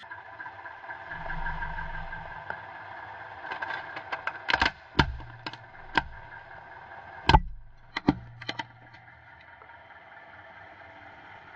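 A plastic toy police car cracking and snapping as a car tyre rolls over it: a run of sharp cracks around the middle, the loudest a little later, over the steady running of the car's idling engine.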